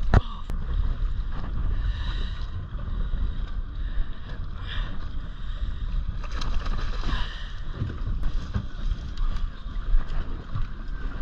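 Wind buffeting the microphone over water sloshing and splashing against a small boat's hull, with a sharp knock right at the start.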